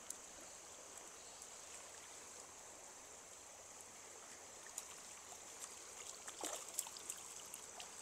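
Faint, steady trickling of a shallow stream, with a few small clicks about five to seven seconds in.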